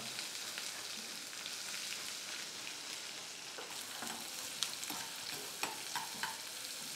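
Finely chopped onion sizzling in hot ghee in a stainless steel pan, stirred with a perforated steel spoon that clicks against the pan a few times in the second half.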